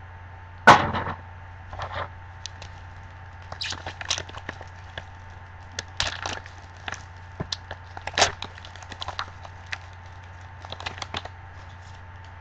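Foil wrapper of a trading-card pack being torn open and crinkled. There is a sharp crack about a second in, then scattered crinkles and rustles as the foil is pulled apart and the cards are drawn out.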